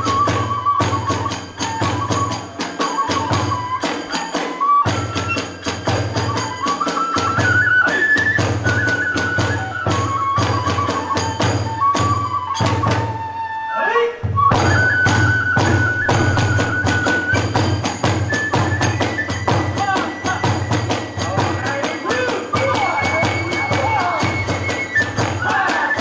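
Kagura hayashi ensemble playing a fast rhythm: a bamboo transverse flute (fue) carries a stepping melody over rapid strokes on the large and small drums and the clashing hand cymbals (tebiragane). The flute drops out briefly about halfway through and comes back on a rising note.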